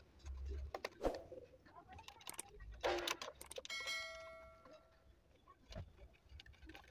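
Small metal parts and tools being handled during reassembly: scattered faint clicks and knocks, with one bright metallic clink about three and a half seconds in that rings on for about a second.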